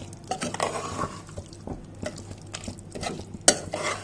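A spoon stirring chicken into thick ground masala in a metal cooking pot, with irregular scraping and clinking and one sharp knock against the pot about three and a half seconds in.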